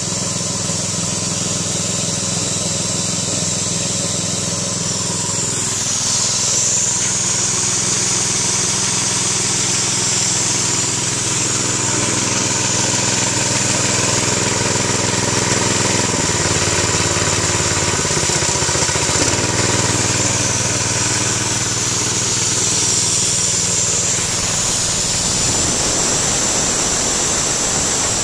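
Harbor Freight Predator 212cc single-cylinder engine running steadily while driving a military air compressor's pump, with a steady high hiss on top. Its note shifts a few times during the run.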